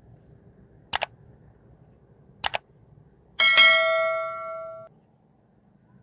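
Like-and-subscribe overlay sound effect: two quick double mouse clicks about a second and a half apart, then a bright notification-bell ding that rings for about a second and a half and cuts off.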